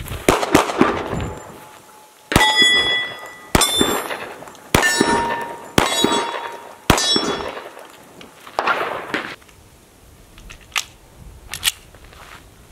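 Smith & Wesson Shield .45 pistol fired in a string of shots about a second apart. Most of the shots are followed by the ringing clang of a hit steel target.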